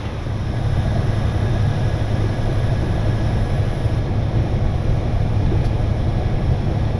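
Truck driving at a steady speed: a continuous low drone of engine and road noise.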